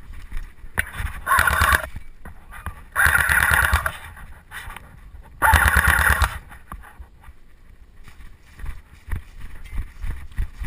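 Airsoft electric rifle firing three rapid full-auto bursts of about a second each, with running footsteps on grass thudding in between.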